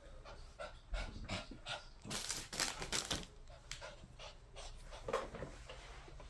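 A dog panting in quick, short breaths, heaviest about two to three seconds in.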